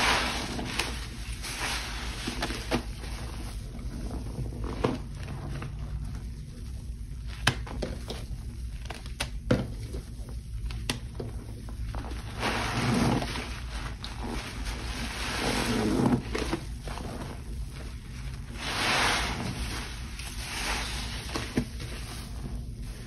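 Wet, frothy cleaning solution of Pine-Sol, Lestoil and Murphy Oil Soap in water, sloshing and splashing, with several louder swells of splashing in the second half and a few sharp clicks.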